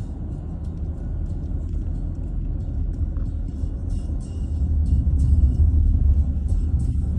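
Motor vehicle rumbling along a flooded road, a steady low rumble that grows louder about five seconds in, with short faint hisses scattered above it.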